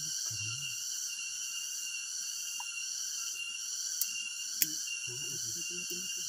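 Steady chorus of insects, crickets or cicadas, a high shrill buzz that pulses evenly. A couple of sharp clicks come about four and four and a half seconds in.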